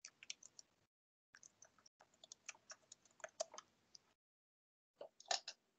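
Computer keyboard typing: a quick, irregular run of faint key clicks, cutting in and out abruptly as a video call's noise gate opens and closes, with a sharper click about five seconds in.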